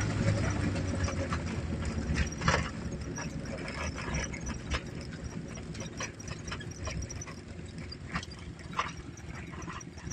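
Small engine of an old Fiat Panda 750 running at low revs, its exhaust manifold broken, fading a little after the first second. Irregular sharp clicks and knocks sound over it.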